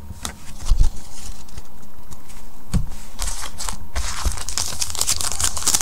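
Trading cards being handled with a few sharp taps and clicks, then the wrapper of a 2015 Panini Gridiron Kings football card pack crinkling from about four seconds in as the pack is picked up and opened.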